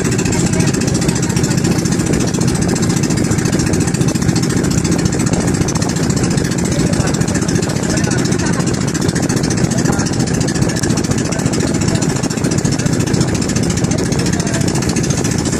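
Engine of a bangka outrigger motorboat running steadily while under way: a loud, constant drone that does not change in pitch.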